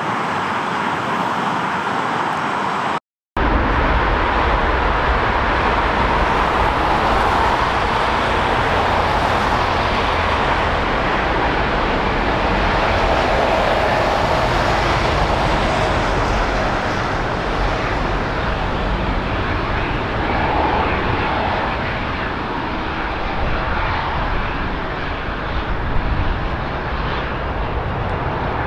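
Airbus A380 jet engines running as the airliner taxis on the airfield, a steady rushing jet noise with a low rumble underneath. The sound cuts out briefly about three seconds in, then returns.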